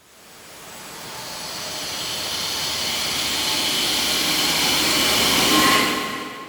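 A loud rushing noise that builds steadily for about five seconds, then falls away quickly near the end, with a faint steady tone showing as it fades.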